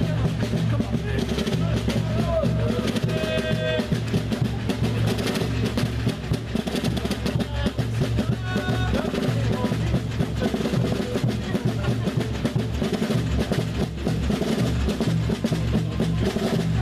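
Carnival drum band playing a steady marching beat: rapid snare-drum strokes and rolls over a bass drum, with other instruments sustaining low notes underneath.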